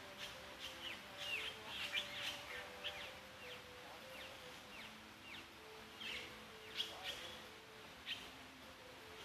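Birds chirping: many quick, downward-sliding chirps in two flurries, the first about a second in and the second around six to eight seconds in.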